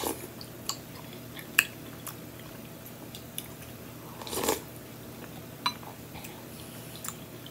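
Eating celery and carrot soup from a spoon: a slurp at the start and a louder one about four and a half seconds in, with soft chewing and small wet mouth clicks between.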